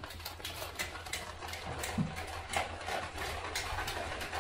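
Electrical cable being pushed by hand up through plastic conduit: a run of quick, irregular scrapes and ticks over a steady low hum.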